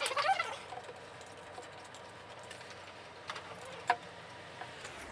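Light metallic clinks and taps from the piston and cylinder of a Reiter KB1 air power hammer being worked into place by hand, with a sharper knock a little before the end.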